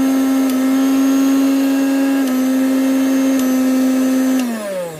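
Elevate 550 W mixer grinder's motor running with a steady high-pitched whine, then switched off near the end so that the whine falls in pitch as the motor spins down.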